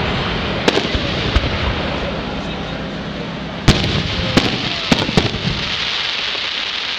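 Fireworks going off: a string of sharp bangs, about six in all, the loudest a little over halfway in, over a continuous noisy background.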